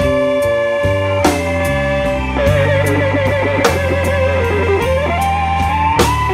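Blues band playing: a Fender Stratocaster electric guitar plays a lead line over bass and drums. The guitar holds one long note, then a wavering bent note, then slides upward near the end, with cymbal crashes about every two and a half seconds.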